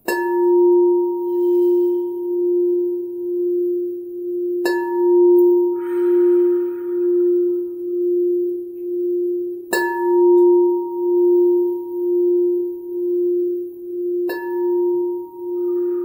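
Frosted crystal singing bowl struck with a rubber-ball mallet four times, about five seconds apart. Each strike sets off a steady ringing tone that swells and fades about once a second and rings on unbroken between strikes.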